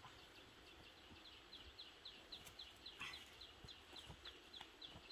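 Near silence with a faint, high chirp repeating evenly about three times a second, and a brief scratchy sound about three seconds in.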